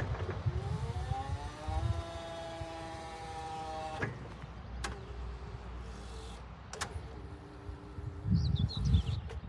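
Electric hydraulic pump motor of a Hyster R1.4 reach truck spinning up with a rising whine, running steadily for about two seconds as the mast hydraulics are worked, then cutting off with a click about four seconds in. A few more sharp clicks and a fainter steady hum follow.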